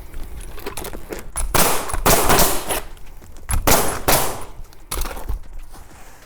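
Pneumatic roofing nailer firing nails through an asphalt shingle, several shots in three quick clusters.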